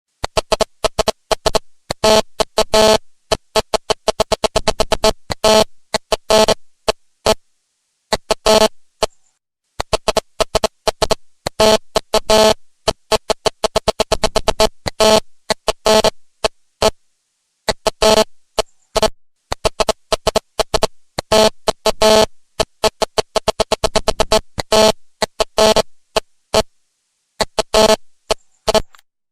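Fax machine printing: its stepper motor advances the paper in rapid runs of clicks with a buzzing tone, in bursts of a second or two broken by short pauses.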